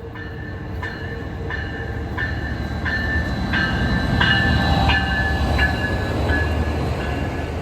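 Passenger train rolling past with its locomotive bell ringing steadily, about one ring every 0.7 seconds, over a low rumble that builds to its loudest near the middle and eases off toward the end.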